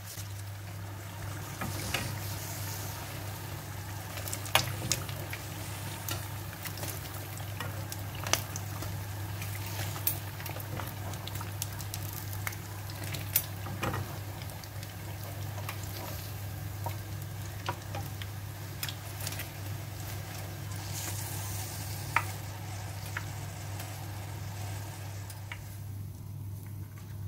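Battered banana fritters deep-frying in hot oil, a steady sizzle, with sharp clicks of metal tongs and a wire strainer knocking against the pan. A steady low hum runs underneath, and the sizzle drops away near the end.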